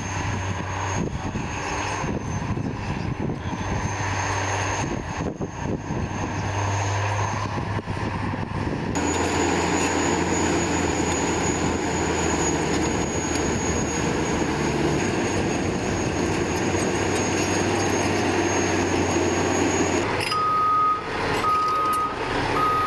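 A bulldozer's diesel engine runs steadily under load, changing abruptly twice. Near the end a reversing alarm starts beeping about once a second.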